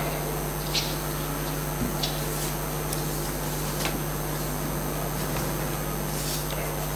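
Steady electrical hum and hiss of a hall's sound system and recording chain in a pause in speech, with a few faint, brief ticks.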